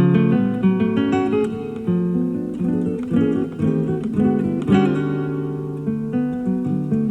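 Classical guitar playing a run of plucked notes and chords, with a strongly struck chord about two-thirds of the way through. It is a live performance recorded off an FM radio broadcast onto cassette tape.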